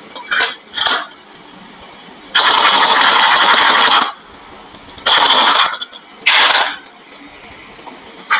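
Marbles rolling and clattering down a wooden marble-run slope in separate bursts. The longest and loudest run starts about two and a half seconds in and lasts nearly two seconds, with shorter rattles before and after it.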